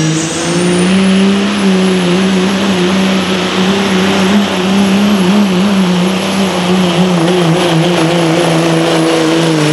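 Dodge Ram pickup's Cummins inline-six diesel held at high revs under full load while pulling a weight sled. A high turbo whistle climbs in the first second or so and then holds steady over the engine note.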